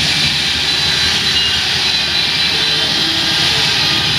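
Handheld electric angle grinders running steadily as they carve stone blocks, a loud continuous high whine and grinding.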